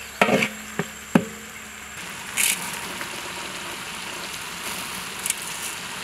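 Shallots, garlic and tomatoes frying in sesame oil in a large aluminium pot, with a steady sizzle. A metal ladle knocks and scrapes against the pot three or four times in the first second or so.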